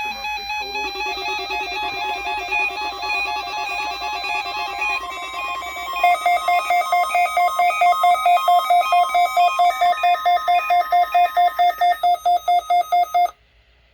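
Electronic warning-alarm test tones. Rapidly alternating, warbling tones run for about six seconds, then switch to a single tone pulsing about four times a second, which cuts off abruptly near the end.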